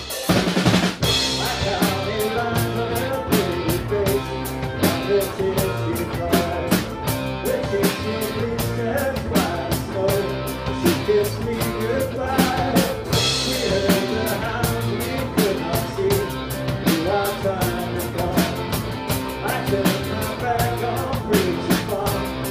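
Live Celtic rock band playing: mandolin, acoustic and electric guitars, bass guitar and drum kit, with cymbal crashes about half a second in and again about thirteen seconds in.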